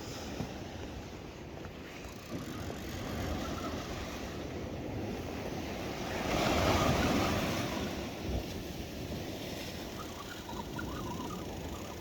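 Sea waves washing on the shore with wind buffeting the microphone; one wave surges louder about six seconds in.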